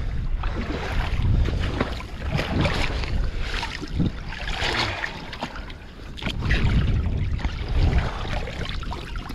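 Wind buffeting the microphone in a steady low rumble, with water splashing and sloshing and irregular knocks as a weed-covered crab pot is hauled out of a rock pool by its rope.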